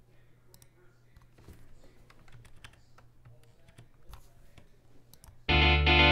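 Light clicking on a computer keyboard, then about five and a half seconds in, notation software's synthesized playback of the band arrangement starts loudly with sustained chords.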